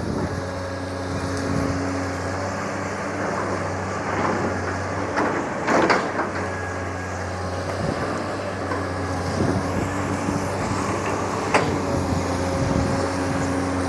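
Long-arm hydraulic excavator's diesel engine running steadily as the machine moves back, with a couple of sharp metallic knocks, one about six seconds in and another near the end.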